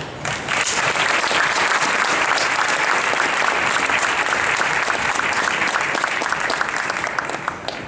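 Crowd in the bleachers applauding: many hands clapping, starting just after the beginning, holding steady, then dying away near the end.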